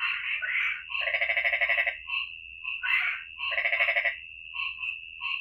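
A frog chorus: many frogs calling over a steady high-pitched drone, with short repeated notes and two longer rattling, rapidly pulsed calls, one about a second in and another about three and a half seconds in.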